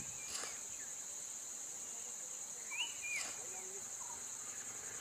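Steady high-pitched chorus of insects such as crickets or cicadas, with a short two-note chirp near the middle.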